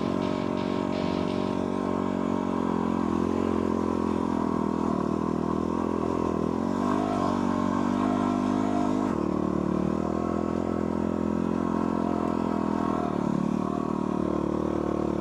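Dual sport motorcycle engine running while riding, its pitch rising and falling with the throttle, with a marked change in the sound about nine seconds in.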